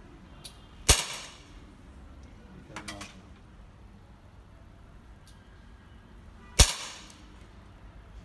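Two shots from an Umarex Colt Special Combat CO2 BB pistol, about six seconds apart, each a sharp crack with a short tail. A few faint clicks and taps fall between them.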